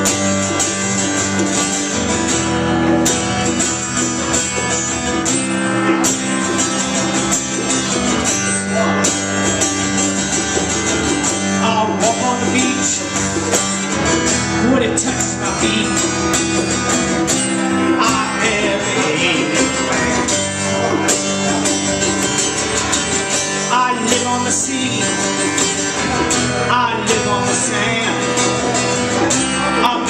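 Acoustic guitar strummed steadily in a live folk-rock song, with a man singing over it from about twelve seconds in.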